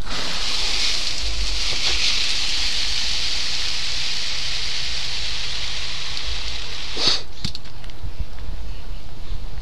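Garden hose spray nozzle spraying water onto flower beds and shrubs, a steady hiss that stops with a click about seven seconds in.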